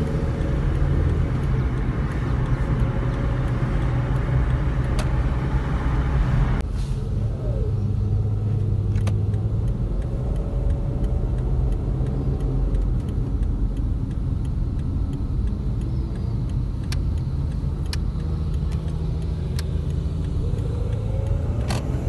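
A car driving, heard from inside the cabin: a steady low engine hum under road and tyre noise. The road noise drops off suddenly about six and a half seconds in, leaving mostly the engine's low hum.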